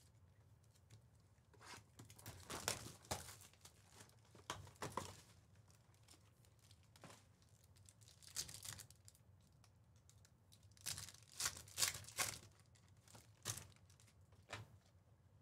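Foil wrapper of a trading-card pack being torn open and crinkled by hand, in several short bursts of tearing and rustling.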